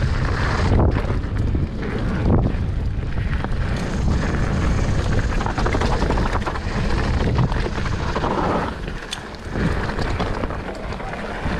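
Wind buffeting a bike-mounted action camera's microphone while a mountain bike rolls down a dirt and leaf-covered trail, with tyre noise and a few sharp knocks from the bike over bumps.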